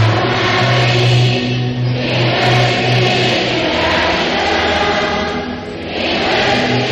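A man's voice chanting a liturgical prayer through a microphone and the church loudspeakers, held on a low, nearly level recitation pitch and easing briefly between phrases about two and six seconds in.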